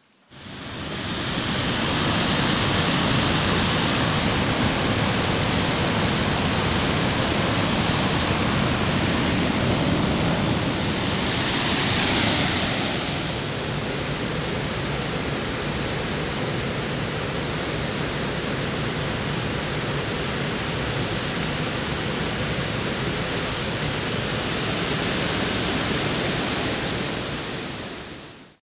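A steady rushing hiss that starts abruptly, swells briefly about twelve seconds in, then cuts off suddenly near the end.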